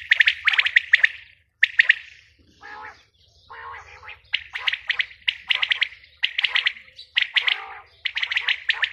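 Female quail calling: short bursts of rapid high notes, repeated about once a second, with a lower, rougher call in between about three seconds in.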